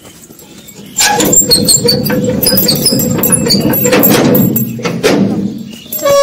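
Wrought-iron gate being worked open: a grinding metal scrape with a steady squeal and high metallic ringing, starting about a second in and lasting about five seconds, with a few clicks near the end.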